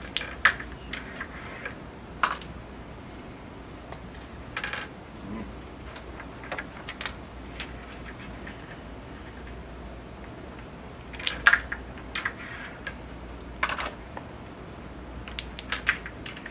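Wooden crokinole discs clicking sharply as they are flicked across the board and strike other discs and the pegs. The clicks come every few seconds, with a quick run of them about eleven seconds in and again near the end.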